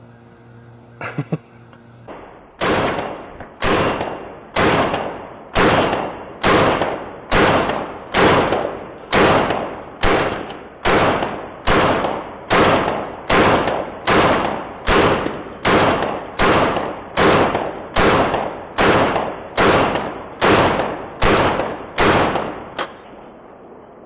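Hand saw cutting through PVC pipe: a long, steady run of back-and-forth rasping strokes, about one and a half a second, that stops near the end.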